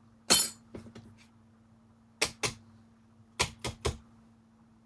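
Sharp clacks of die-cutting plates and thin metal dies being handled and knocked together. There is a loud one near the start, two more a little after two seconds in, and three quick ones in a row after three seconds.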